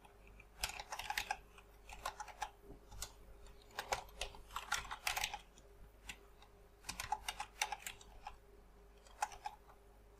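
Computer keyboard typing in short bursts of a few keystrokes, with pauses between. This is data being typed into a form.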